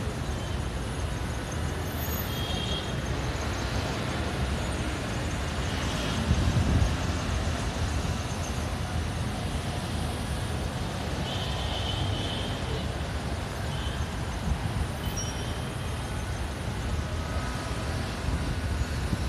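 Steady low rumble of distant city road traffic, with a few brief faint high-pitched sounds over it.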